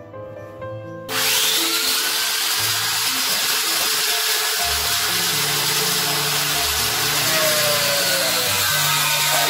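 Electric angle grinder switched on about a second in, its high whine dipping as the disc bites, then running steadily as the cutting disc slices into a plastic drum lid. It is making a partial cut so the lid can be folded.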